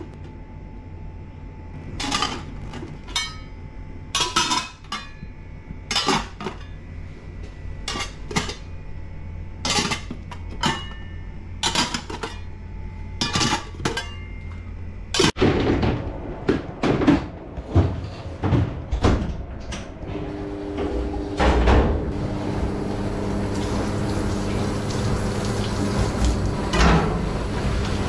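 A series of sharp knocks and clatters, like hard objects being handled and set down, spaced a second or two apart and then coming faster. From about twenty seconds in, a steady hum with a few held tones rises under them.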